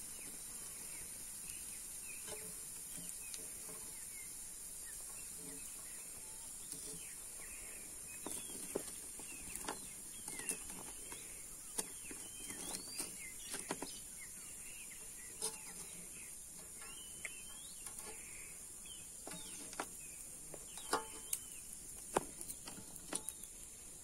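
Small fish frying in hot oil in a frying pan: a steady high hiss with scattered crackles and clicks as a fork lifts pieces out of the pan. Birds chirp now and then.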